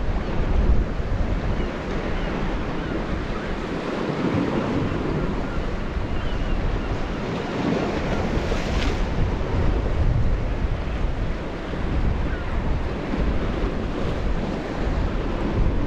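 Sea waves washing against shoreline rocks, with wind buffeting the microphone in a steady low rumble. One wave breaks with a brighter splash about eight seconds in.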